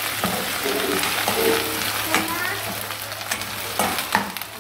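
Sliced onions and cumin seeds sizzling in hot oil in a wok, with a spatula stirring and scraping against the pan and a few sharp clicks of metal on metal.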